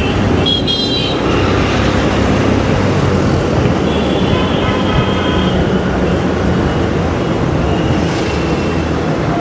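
Steady traffic noise heard from a moving motorcycle in dense city traffic: a constant rumble of engines and tyres from the bike, buses, cars and scooters around it.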